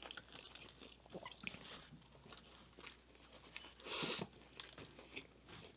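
Faint close-up chewing of a breakfast sandwich on a lightly toasted everything bagel: soft wet mouth sounds with small clicks and crackles, and a brief louder burst about four seconds in.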